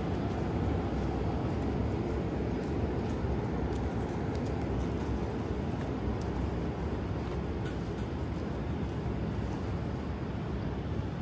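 Steady urban street ambience: a low rumble of passing traffic, with faint scattered clicks.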